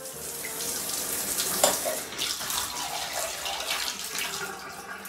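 Water running from a small toy shower head and splashing onto a plastic toy elephant in a toy tub, a steady splashing hiss with a few sharper splashes about a second and a half in.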